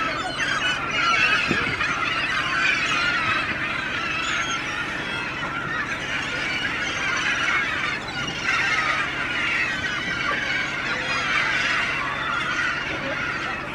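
A large flock of gulls calling without pause, many high squealing calls overlapping, as they crowd over a netful of fish. A low steady hum runs underneath.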